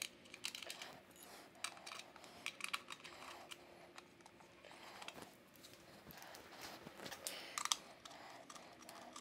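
Faint, scattered small clicks and light scrapes of a hex key and side screws against a motorcycle headlight's metal retaining ring as the screws are fitted, with a louder cluster of clicks near the end.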